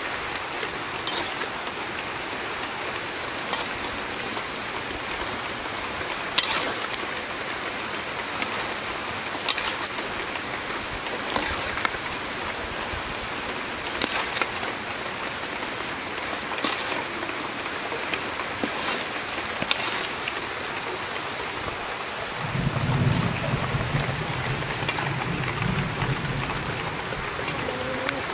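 Taro stems and hilsa fish curry boiling and sizzling in a wok over a wood fire: a steady hiss with sharp pops every second or two. A low hum comes in for a few seconds about three quarters of the way through.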